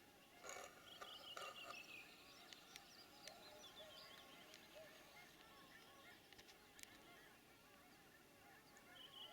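Many birds calling over one another, faint and continuous. A songbird's descending phrase of high notes sounds about a second in and again near the end, with a few sharp clicks.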